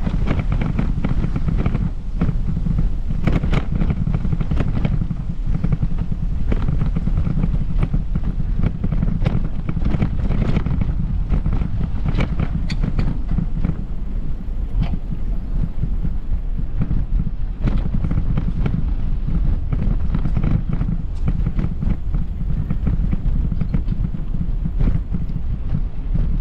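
Wind buffeting the microphone as a steady low rumble, with irregular footsteps crunching along a path.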